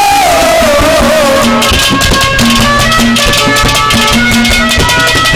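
Live Haryanvi ragni music: a held, wavering melody note trails off over the first second and a half, then the drums come in with a fast, steady beat under short repeated melody notes.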